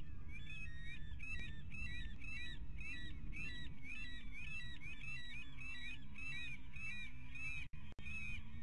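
A bird calling over and over, a long series of short notes that bend up and down in pitch, about two to three a second, over a steady low rumble.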